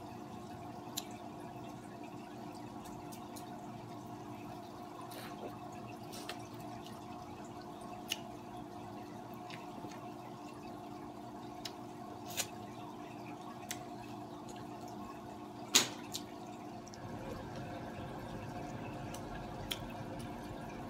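Steady hum and dripping trickle of water from an aquarium filter, under scattered soft clicks and mouth sounds of someone eating, with one sharper click about three-quarters of the way through.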